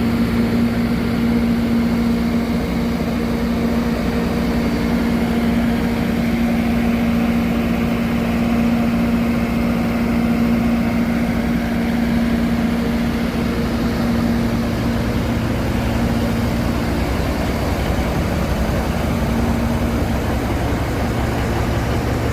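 Alishan Forest Railway train running steadily: a continuous engine drone with a strong steady hum that weakens over the last few seconds.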